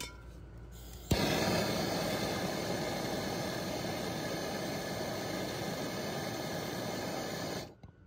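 MAPP gas torch lit with a click about a second in, its flame hissing steadily while it heats a copper refrigerant line joint for soft soldering. The hiss cuts off abruptly near the end.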